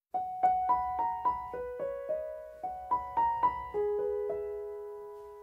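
Solo piano playing a gentle melody in single notes struck about four a second, then settling on a chord a little under four seconds in that rings and slowly fades.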